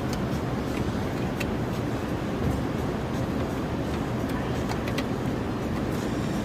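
A few light clicks and taps of a ribbon cable and its plastic connector being handled and fitted, over a steady low background rumble.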